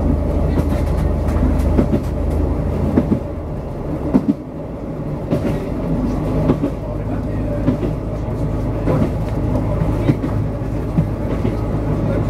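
X 2100 diesel railcar running, heard from inside the driver's cab, with the wheels clicking on the track every second or so. The engine hum drops away about three seconds in and picks up again about seven seconds in, as power is eased off and then reapplied.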